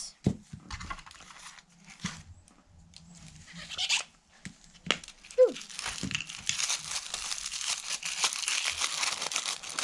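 Thin tissue paper crinkling and rustling as it is unwrapped by hand, dense from about six seconds in; before that, a few light clicks and taps as small plastic capsules are pulled apart.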